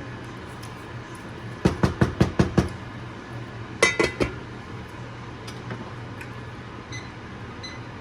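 Kitchen cookware clatter: a quick run of about seven knocks in one second, then a few ringing clinks of metal or crockery about two seconds later, over a steady low hum.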